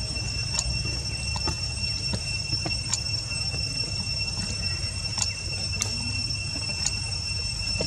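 Steady high-pitched insect drone over a low rumble, with scattered faint clicks.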